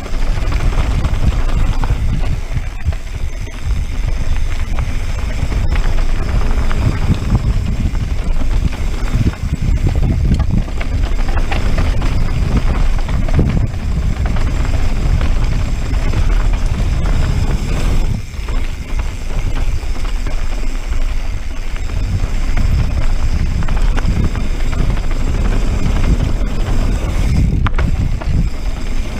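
Wind buffeting an action camera's microphone on a mountain bike riding fast downhill, a steady low rumble. Mixed in is the noise of knobby tyres over loose gravel and dirt.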